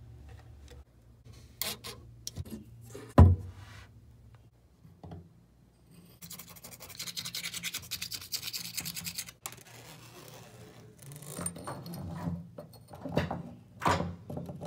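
Faucet valve parts being handled, with scattered sharp metal clicks and knocks, the loudest about three seconds in. Then several seconds of rapid scratching as a hand works at the rim of a faucet hole in a granite countertop, followed by more knocks near the end.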